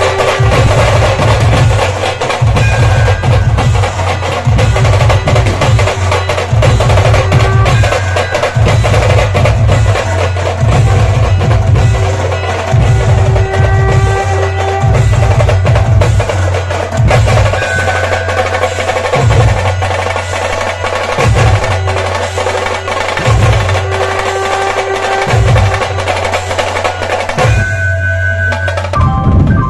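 Dhol-tasha drumming: heavy dhol bass strokes in a steady beat under rapid, dense tasha rolls, with a held tone coming and going. The drumming breaks off near the end.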